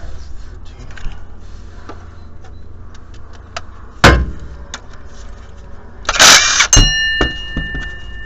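Metal tools and sockets clinking against an engine, with a sharp knock about four seconds in and a short burst from a cordless impact tool about six seconds in, followed by another metallic hit.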